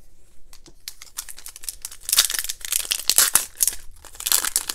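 Wrapper of a 2017 Donruss Optic Football hobby pack being torn open and crinkled. It crackles for about a second and a half starting two seconds in, pauses briefly, then crackles again near the end.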